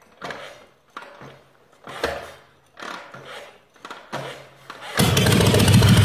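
Harley-Davidson V-twin motorcycle being kick-started: several kicks about a second apart, each a short burst of the engine turning over. About five seconds in it fires and keeps running loud and steady.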